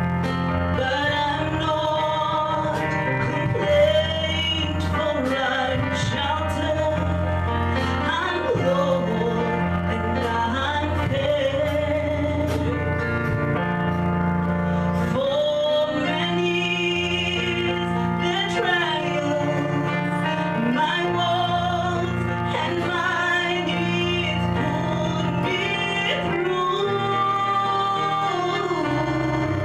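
A woman singing a gospel song into a handheld microphone over steady instrumental accompaniment.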